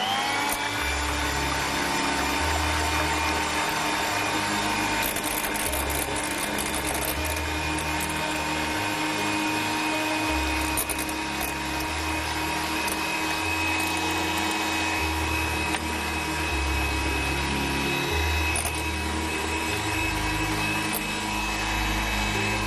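Electric hand mixer whisking eggs in a glass bowl. Its motor whine rises in pitch as it spins up at the start, then holds a steady pitch. The beaters are working air into the eggs alone until they lighten in colour, before anything else is added.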